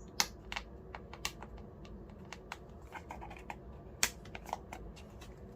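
A small product box being handled and opened: scattered light clicks and taps of fingers and cardboard, a sharper click shortly after the start and another about four seconds in.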